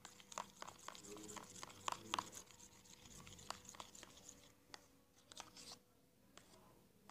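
Faint scattered clicks and rustles of a small plastic tub of soap-and-salt slime being handled and stirred with a metal spoon. The clicks come thick in the first couple of seconds and sparser after.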